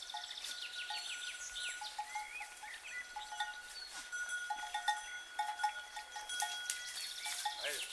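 Bells on grazing livestock clanking in irregular short clusters, with birds chirping and a steady high tone held behind them.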